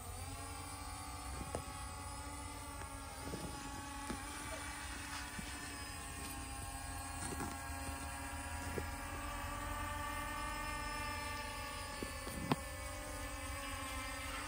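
Small camera quadcopter drone in flight: its propellers whine as several steady tones at once, dipping slightly in pitch at the start and then holding level. A single sharp click stands out about twelve seconds in.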